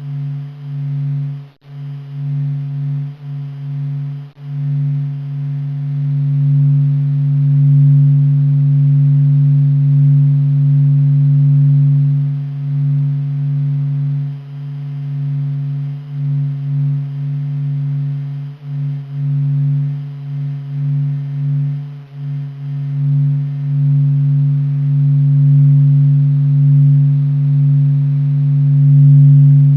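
Sonification of the Sun: a deep, steady electronic hum made from solar oscillation data, with a strong low tone and a fainter tone above it. Its loudness wavers and flutters in the first few seconds, then swells into a smoother, fuller drone.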